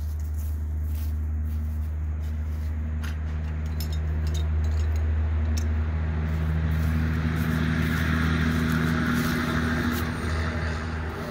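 A steady low engine hum, growing louder with added hiss from about six seconds in and easing again near the end.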